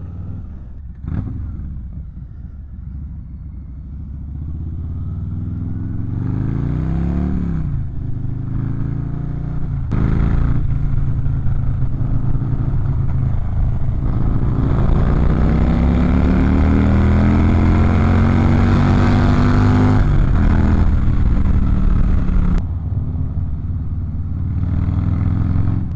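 Harley-Davidson Low Rider ST's Milwaukee-Eight 117 V-twin accelerating hard up through the gears. The engine pitch climbs repeatedly, with one long rise in the middle, then drops at gear changes near the end, and wind rush builds with speed.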